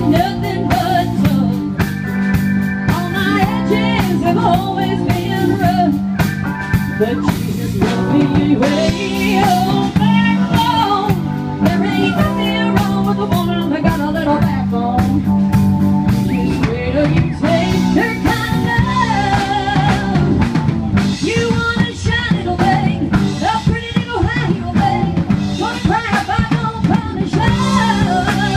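Live rock band playing, with a drum kit, electric guitars and a singer.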